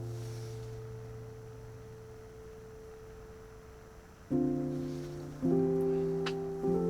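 Slow, soft instrumental background music. A held chord fades away over about four seconds, then new chords come in roughly a second apart.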